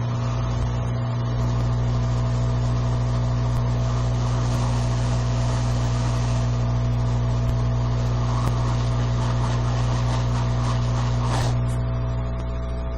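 A hot air rework station's blower is running steadily, a hum with an airy hiss, as it reflows the solder under a replacement chip. The hiss cuts off about eleven seconds in and a lower hum remains.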